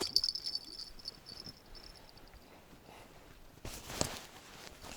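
High, rapid insect chirring that fades out about halfway through, followed by a brief rustle and knock about four seconds in.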